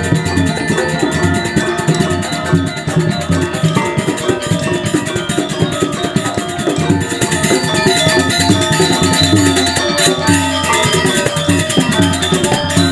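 Balinese gamelan ensemble playing dance accompaniment: bronze metallophones and gongs ringing in fast, dense rhythm over drums.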